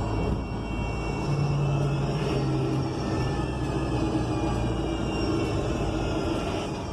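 Interior drone of a 2021 ENC Axess bus under way: its Cummins Westport L9N natural-gas inline-six and Voith automatic transmission running steadily over road rumble. A faint whine rises in pitch around the middle.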